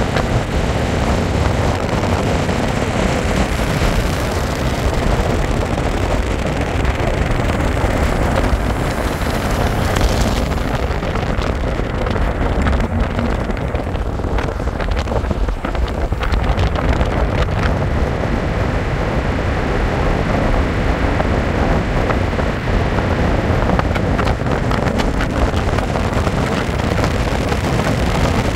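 Steady road and wind noise of a car driving at speed, with wind buffeting the microphone.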